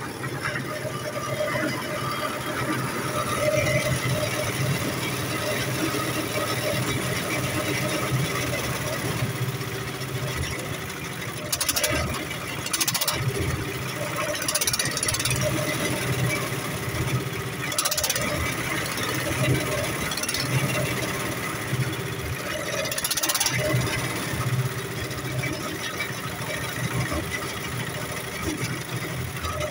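Small diesel engine of a concrete mixer running steadily with a low, pulsing beat. A few brief hissy bursts come over it now and then.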